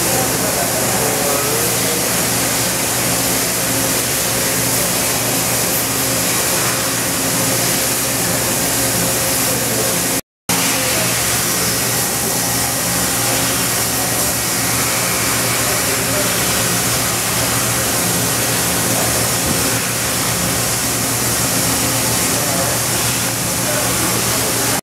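OKK HM100S CNC horizontal machining center running inside its enclosure: a steady mechanical hum with a constant hiss over it. The sound drops out briefly about ten seconds in, then carries on unchanged.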